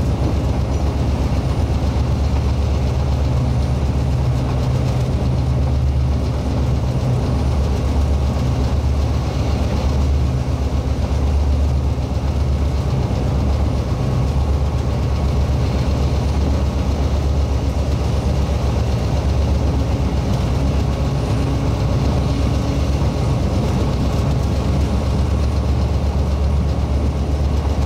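Taiwan Railway R123 diesel-electric locomotive's engine running with a steady, loud low hum and no letup.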